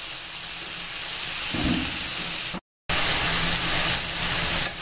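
Onion and tomato paste sizzling as it fries in hot oil, a steady frying hiss. A short low knock about one and a half seconds in, and the sound drops out for a moment a little after halfway.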